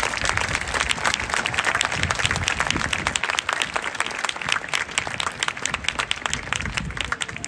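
Crowd applauding: dense, steady clapping from many people that thins out near the end.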